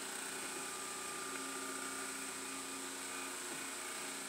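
Steady machine hum with a high whine.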